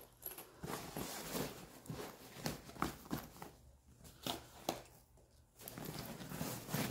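Rustling and soft knocks of things being handled and pushed into a quilted fabric weekender bag, irregular and uneven, with a couple of brief pauses. Near the end a plush neck pillow is pressed in on top.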